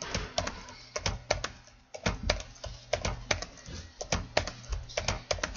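Computer keyboard typing: quick clusters of keystrokes about once a second, as a short word is typed and entered into one spreadsheet cell after another.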